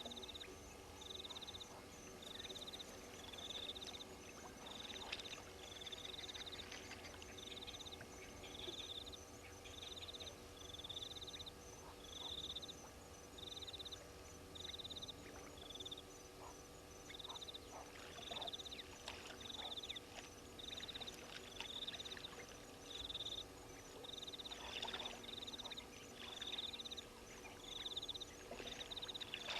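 A small animal's short, high-pitched call repeated about once a second, pausing briefly midway, over a faint outdoor background. A few brief splashes of water come in the second half.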